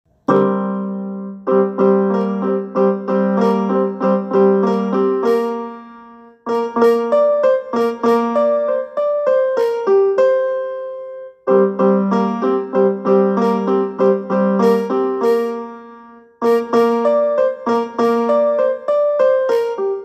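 Phone ringtone: a short piano-like melody of quick struck notes. The same phrase repeats about every five seconds, with a brief break between repeats.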